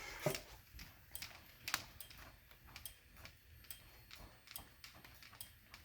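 Faint sharp clicks, about two to three a second at slightly uneven spacing, from fire alarm strobes ticking as they flash.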